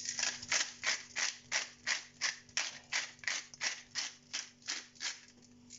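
Pepper mill grinding pepper into a pan: a run of short crunching strokes, about three a second, that stops about five seconds in.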